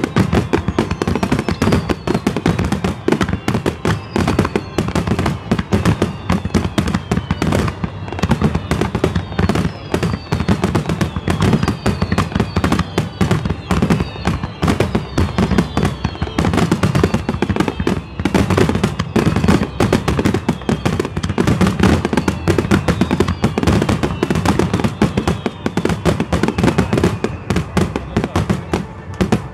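Fireworks display: a dense, continuous barrage of aerial shells bursting, bangs and crackling packed closely together.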